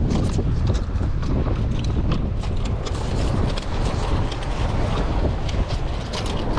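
Strong wind buffeting the microphone, a steady low rumble, with scattered light clicks.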